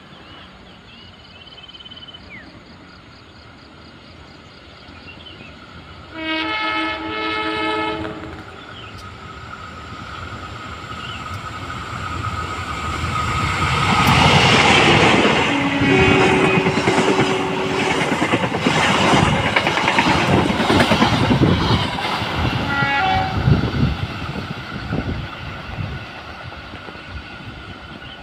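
Diesel-hauled passenger train approaching and passing close by: its multi-tone horn sounds for about two seconds some six seconds in, then the locomotive's engine and the carriage wheels clacking over the rail joints grow loud and run past, with a second, short horn blast later on, before the sound fades away.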